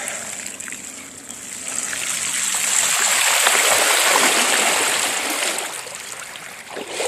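Rushing floodwater: a steady hiss of moving water that grows louder about two seconds in and fades again toward the end.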